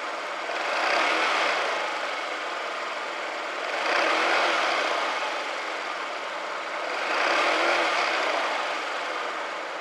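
Yamaha Remocon Vino 50cc scooter engine idling, revved up three times, with each rev lasting about a second and a half before it drops back to idle.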